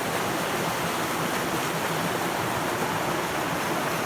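River water rushing steadily over rocks and a small waterfall.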